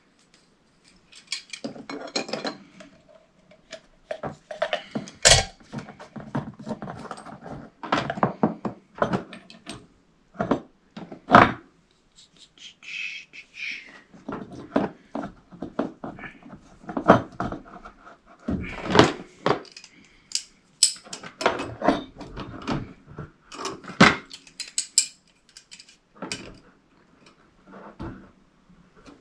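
Metal hand tools and pipe fittings clinking and knocking irregularly as they are handled at a radiator valve and set down in a plastic tray.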